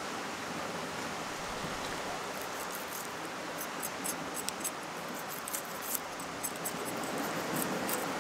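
Steady rushing wind-and-sea noise, with a scatter of faint, crisp crackling clicks from about two and a half seconds in as a small knife cuts into a whole fish behind its head to start a fillet.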